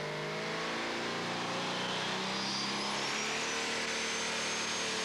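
Modified pulling tractor's engine running hard under load as it hauls the sled, a steady drone with a faint high whine rising from about halfway through.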